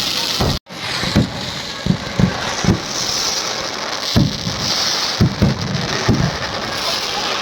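Firecrackers going off: a steady high fizzing crackle with irregular sharp pops throughout. The sound cuts out completely for a split second just under a second in.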